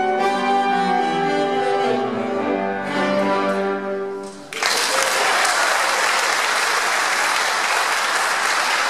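A youth ensemble of violins, cello, guitars and keyboards plays the closing held chords of a piece, fading out. About halfway through, the audience bursts into steady applause.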